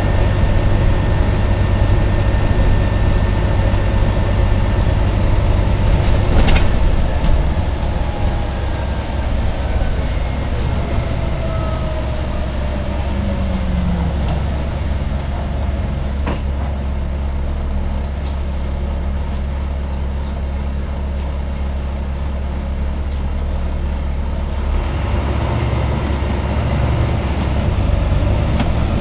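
Volvo B9TL double-decker bus heard from inside while running, with a strong steady low hum underneath, the humming noise the bus is known for. A few higher whines glide down in pitch in the middle as the bus slows, with a couple of brief knocks.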